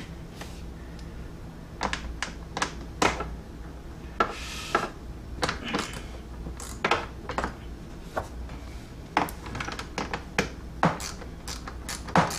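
Irregular sharp clicks and knocks from hand tools and plastic center-console trim being worked on, with a short scraping rustle about four seconds in, over a low steady hum.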